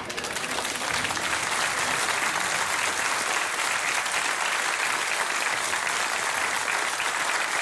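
Studio audience applauding: dense, even clapping that starts suddenly and holds at a steady level.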